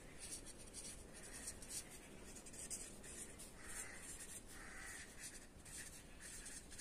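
Faint scratching of a felt-tip marker on paper in short, repeated strokes as words are handwritten.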